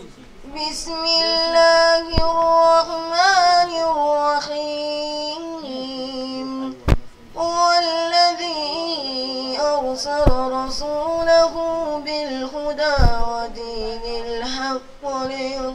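A boy chanting the Quran in the melodic recitation style, holding long ornamented notes in phrases separated by short breaths.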